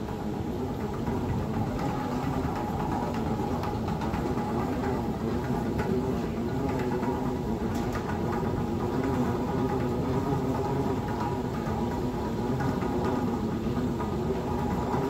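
Steady mechanical hum of an airport, with a few faint held tones over a low rumble.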